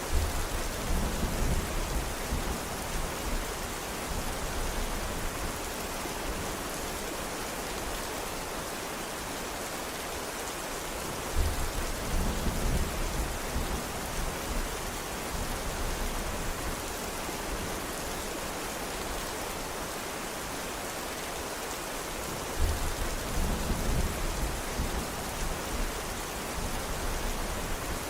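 Steady heavy rain falling, with a low rumble of thunder three times, each lasting a few seconds.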